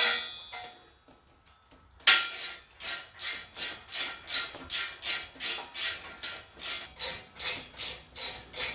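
Hand ratchet wrench worked back and forth on a threaded stud adjuster in a steel welding table plate, giving a rasping ratchet stroke about three times a second. It starts about two seconds in.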